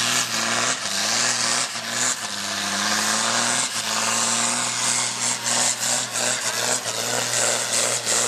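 Volvo BM farm tractor's diesel engine running flat out under heavy load as it drags a weight sled down a tractor-pull track. Its pitch holds nearly steady with slight dips, over a loud rushing noise.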